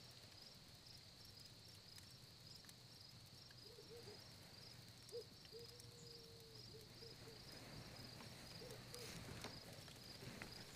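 Near silence, with faint crickets chirping steadily in an even, rapid pulse.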